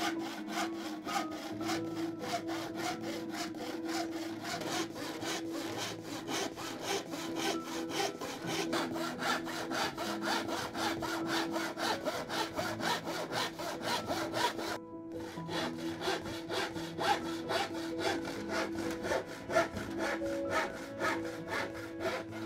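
Hand panel saw cutting through a sheet of 12 mm red oak veneered plywood in steady, even back-and-forth strokes, each stroke a rasping rub of the teeth in the wood.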